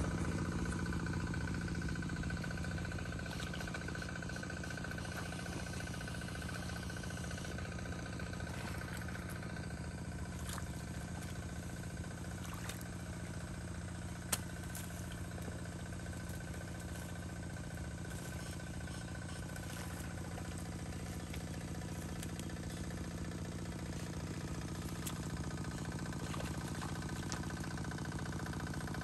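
Small engine running steadily with a faint constant whine, unchanging throughout, with one sharp tick about fourteen seconds in.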